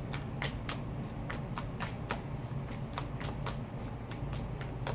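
A deck of tarot cards being hand-shuffled: irregular crisp card snaps and slides, a few a second, over a steady low hum.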